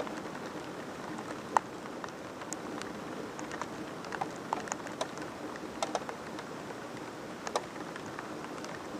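Steady rain falling in a thunderstorm, with scattered sharp ticks of single drops striking a nearby surface, the loudest about a second and a half in.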